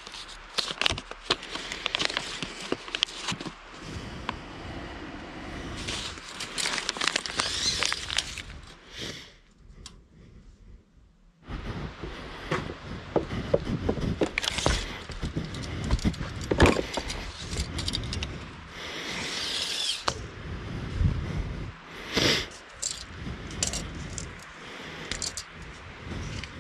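Hands handling tools and rough-sawn beams: irregular scrapes, clicks and rustles, with a tape measure laid along a beam near the end. A brief near-silent break comes about ten seconds in.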